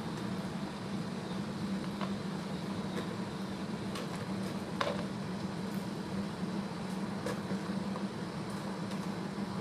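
A stockpot of water at a rolling boil over a steady low hum. A few short plops and clinks come as chunks of oxtail and vegetables are dropped into the boiling water.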